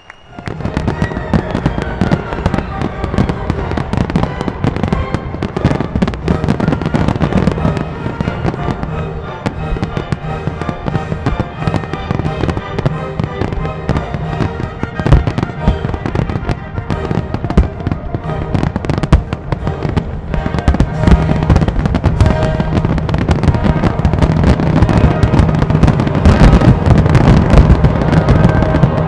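Fireworks display: a dense run of aerial shells bursting in quick succession over music played with the show. It starts abruptly and grows louder near the end.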